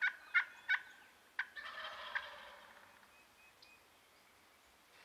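Wild turkeys calling: a quick series of short notes, about three a second, then a single longer, rattling gobble about a second and a half in.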